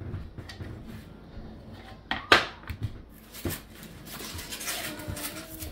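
Flat-pack bookshelf panels and parts being handled: scattered knocks and clatter, the loudest a sharp knock a little over two seconds in, followed by rustling near the end.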